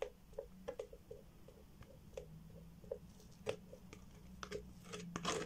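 Epoxy resin dripping from a tipped plastic mixing jug into a silicone mould: faint soft drips about three a second, with a few sharper plastic clicks, most of them near the end, over a low steady hum.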